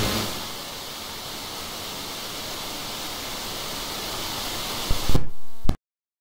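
Steady, loud hiss of noise like static on the broadcast feed. A few short knocks come about five seconds in, then the audio cuts out to dead silence.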